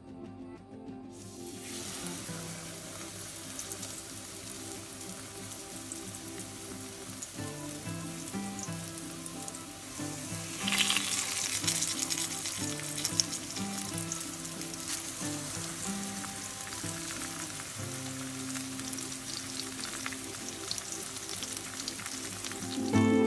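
Flour-dredged chicken cutlets sizzling as they shallow-fry in hot oil in a stainless steel skillet. The sizzle starts about a second in as the first cutlet goes into the oil and grows louder about eleven seconds in as another is added, with soft music underneath.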